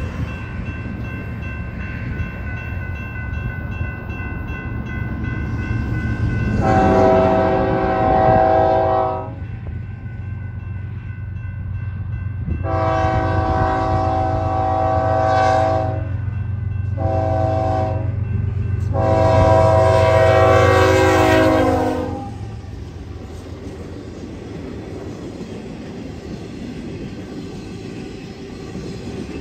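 BNSF diesel freight locomotive's horn sounding the grade-crossing signal as it approaches: two long blasts, one short, one long, over the steady hum of the diesel engines. Once the locomotive is past, the train's flatcars roll by with a steady rumble of wheels on rail.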